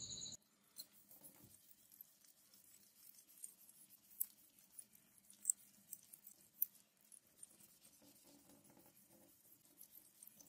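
Faint scratching with scattered small clicks as fine wet sandpaper is rubbed along a steel knife blade under a running tap.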